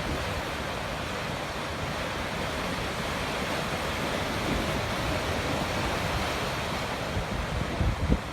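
Sea waves breaking and washing on the shore in a steady surf. Wind buffets the microphone in a few low gusts near the end.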